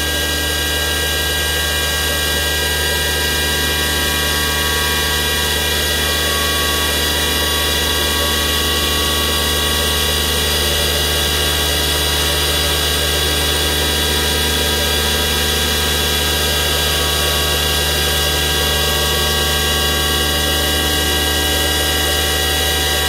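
CNC milling machine's spindle and end mill cutting a ramp contour around the end of a small metal blank: a steady machining sound with several constant pitched tones over even cutting noise.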